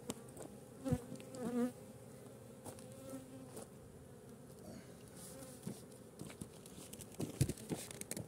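Honey bees buzzing around the hives, with single bees now and then flying close past in a wavering hum. A couple of sharp knocks, about a second in and again near the end.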